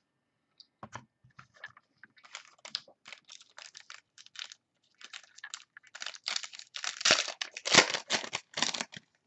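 Plastic wrapper of a football trading-card pack crinkling and tearing as it is opened by hand: a run of quick rustles and crackles that grows louder over the last few seconds.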